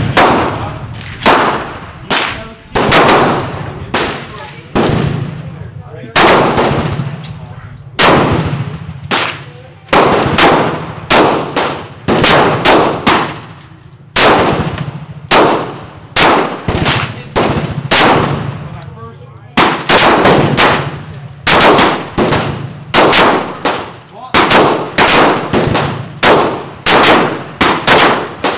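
Glock 19 Gen4 9mm pistol firing Tula steel-cased 115-grain FMJ rounds, shot after shot in quick strings, each report trailing off in an echo.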